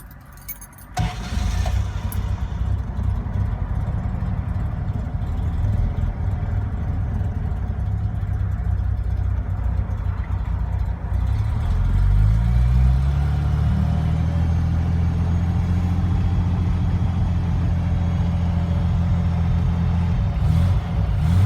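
Triumph TR6 straight-six engine starting about a second in and running at idle; around twelve seconds in the engine speed rises and then holds steady at a higher idle.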